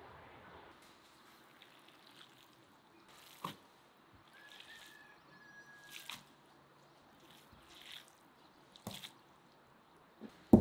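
Hands squeezing and mixing chopped raw meat in a stainless steel bowl: a few short, wet squelches a few seconds apart, with a louder thump right at the end.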